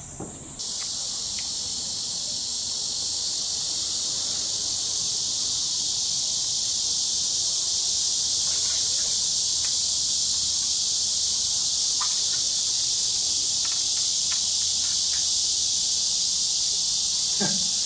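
A steady, high-pitched chorus of insects, starting abruptly about half a second in and holding level, with a few faint clicks under it.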